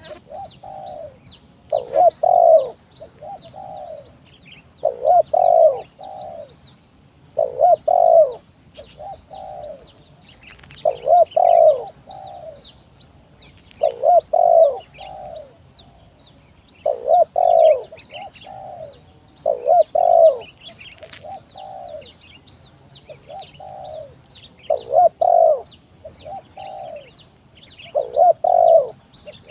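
Spotted dove cooing over and over, each phrase a loud coo followed by a softer note, repeated about every three seconds. Many faint high chirps run underneath.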